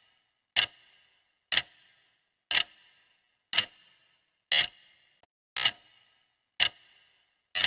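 Clock ticking, one sharp tick a second at a steady pace, eight ticks in all.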